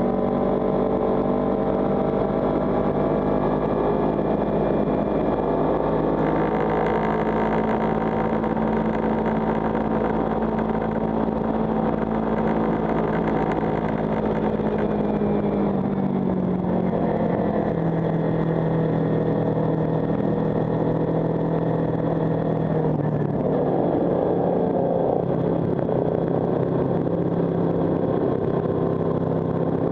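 Kawasaki Ninja 300's parallel-twin engine running under load as the motorcycle is ridden, heard from on board. Its note sags slowly, drops further about halfway through, then holds steady.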